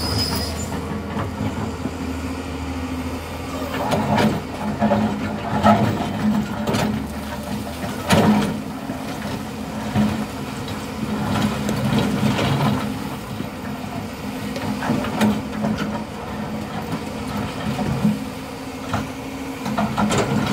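Excavator working: its engine runs steadily, with irregular knocks and clunks every second or two. A deep hum underneath drops away about a third of the way through.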